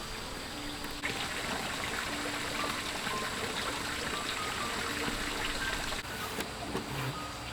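Soft background music with short held notes, over a steady rushing noise that starts suddenly about a second in and cuts off about six seconds in.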